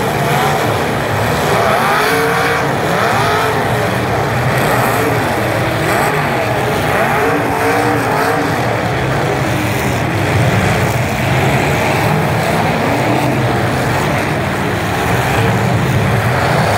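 Several demolition derby truck engines revving at once. Their overlapping pitches rise and fall over a constant mechanical din.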